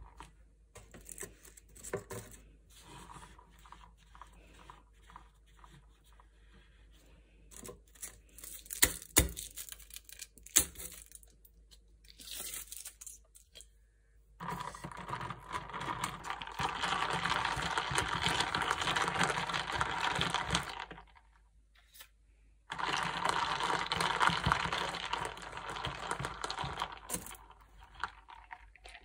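A plastic iced-drink cup, its paper sleeve and a wrapped straw being handled: scattered taps and clicks, then two long stretches of rough tearing, crinkling noise as the sleeve comes off and the straw is unwrapped and pushed through the dome lid.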